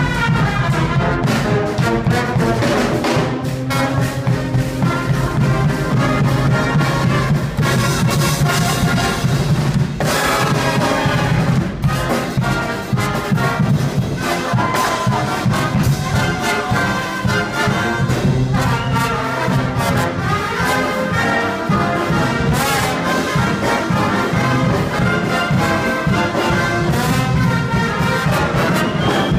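Brass band playing loudly: trumpets, trombones and sousaphones over a bass drum and snare drum, with a steady drum beat.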